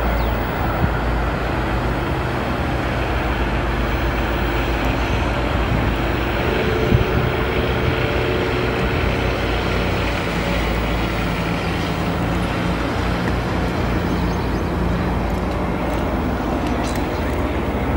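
Steady low rumble and hiss of outdoor background noise, with no clear single event.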